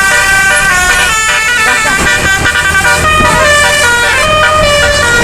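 Bus telolet horn, a nine-trumpet musical air horn, playing a tune: several horn notes sound together and change pitch step by step, over a low steady rumble.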